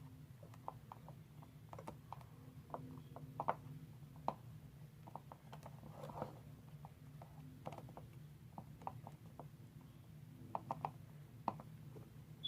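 Faint, irregular clicks and taps of small plastic toy pieces being handled: a tiny game controller being pushed into a plastic pony figure's hoof, over a low steady hum.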